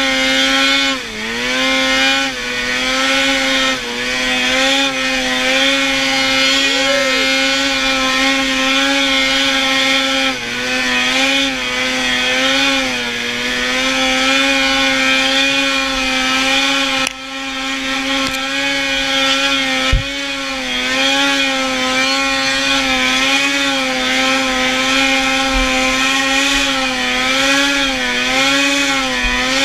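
Polaris snowmobile engine running at high revs while riding, a steady whining note. Its pitch dips briefly several times, most deeply about seventeen seconds in, and wavers up and down near the end.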